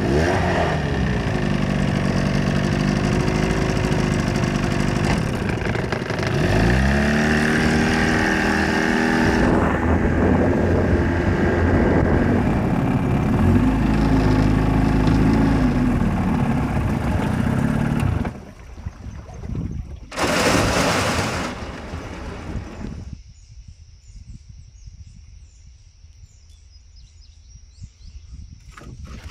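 25 hp tiller outboard motor running on a jon boat: it idles, is throttled up about six seconds in and runs under way, then is throttled back and shut off about eighteen seconds in. A short loud rushing noise follows a couple of seconds later, then a quieter stretch with a faint steady high tone.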